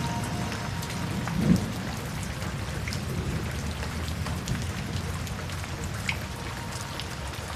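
Steady rain falling, with scattered single drops ticking sharply through it. There is one brief, louder low thump about a second and a half in.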